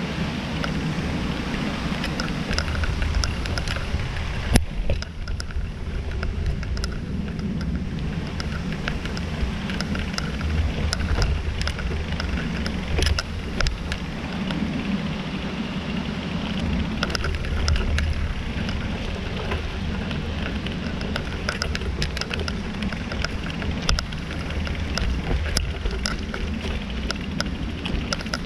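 Bicycle rolling down a dirt trail: a steady rumble of tyres on the ground, with frequent sharp clicks and rattles as the bike goes over bumps, and one harder knock about four and a half seconds in.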